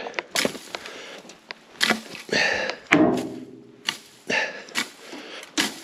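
Boots crunching and sliding in dry, slippery grass on a steep slope, in short irregular bursts, with sniffing and heavy breathing between them.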